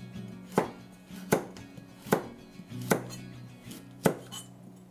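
Chef's knife slicing a carrot into rounds on a wooden cutting board: six sharp knocks of the blade on the board, a little under a second apart.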